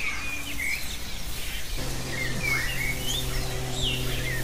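Wild birds chirping with short scattered calls over outdoor background noise. About two seconds in, a low steady note comes in and holds.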